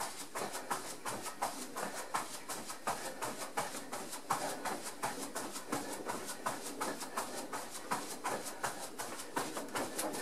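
Fast jumping jacks in socks on a thin floor mat: an even, quick rhythm of foot landings with rustling of a furry mascot costume, and hard breathing.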